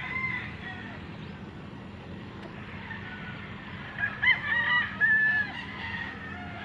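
A rooster crowing, its call rising and wavering and then held, about four seconds in, over a steady low background noise. A fainter call sounds right at the start.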